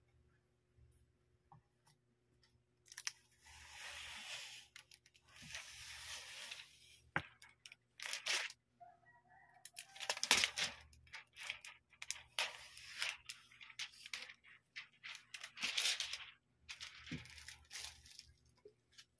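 Clear plastic protective film being peeled off a tablet screen: repeated crackling, tearing pulls beginning about three seconds in, broken by a few sharp clicks.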